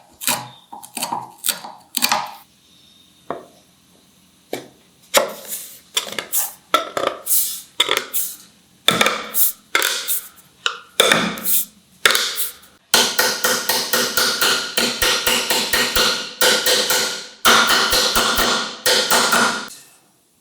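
Hand tool working wood: repeated short rasping strokes, a few a second, turning about two-thirds of the way in into a near-continuous run of longer strokes with a fine rapid ticking inside each.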